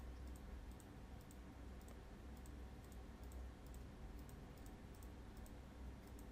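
Faint computer mouse clicks, about two a second and often in quick press-and-release pairs, as mesh faces are selected one after another, over a low steady hum.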